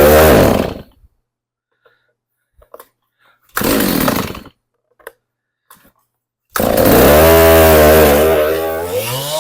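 Stihl MS390 two-stroke chainsaw being pull-started on fast idle. It fires briefly twice and dies. About six and a half seconds in it catches and keeps running, its pitch dropping near the end.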